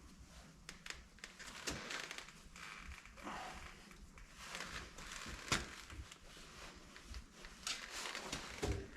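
Rustling and crinkling of seat materials being handled, with scattered light clicks and taps.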